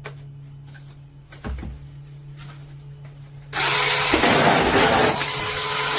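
Small cordless mini chainsaw's electric motor switching on abruptly about halfway through and running loud at full speed, chewing through cardboard. The saw is all-or-nothing, with no throttle to feather it.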